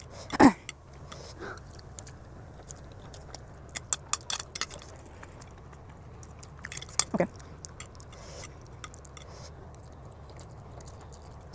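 A person chewing and slurping spicy ramen noodles, heard close on a clip-on microphone, with scattered wet mouth clicks and smacks in small clusters. Two short vocal sounds stand out, about half a second in and again about seven seconds in.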